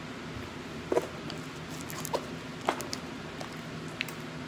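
Sticky glitter slime being kneaded and pulled apart by hand, giving a few scattered wet clicks and pops, the loudest about a second in and another near three seconds in.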